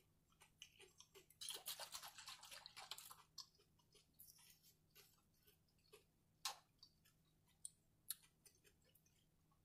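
Faint close-up chewing: soft mouth clicks and crackles, with a denser crackly stretch lasting about a second and a half, starting about a second and a half in, then sparse single clicks.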